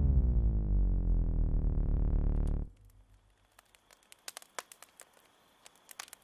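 A loud, low synthesizer tone sounds under the logo and cuts off abruptly about two and a half seconds in. It is followed by faint, scattered crackling and popping from a burning wood fire.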